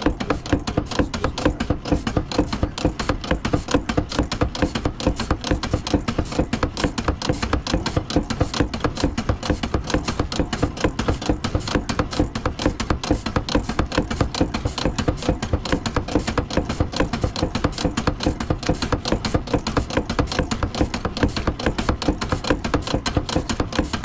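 Wood-Mizer BMT 150 bandsaw-blade tooth setter running through a sawmill blade, clattering in a fast, even rhythm as it advances the blade and bends the teeth left, right and straight in turn.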